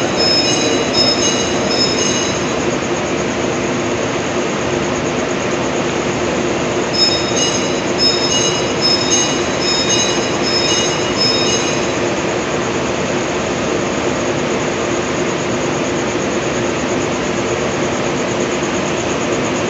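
Parcel train pulling out on the adjacent track and rolling past close by: a steady rumble of the moving cars, with two spells of short high-pitched squeals repeating about twice a second, at the start and again from about seven to eleven seconds in.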